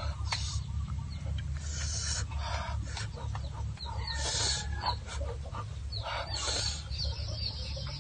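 Eating sounds of roasted snails being picked from their shells, sucked and chewed, over a steady low rumble, with chickens clucking in the background.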